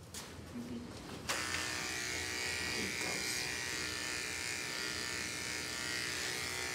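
Electric pet hair clipper switched on about a second in, then running steadily while it is pushed through a small dog's fur.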